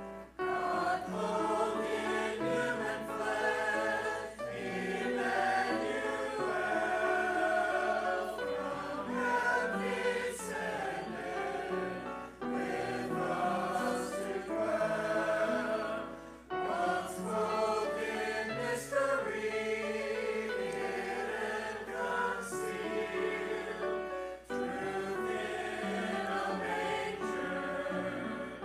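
Church choir singing a sacred piece in phrases of about four seconds, with short breaks between them.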